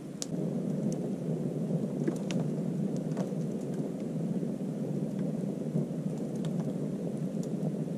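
Wood fire burning in a self-feeding log fire: a steady rush of flames with scattered sharp crackles and pops of the burning wood.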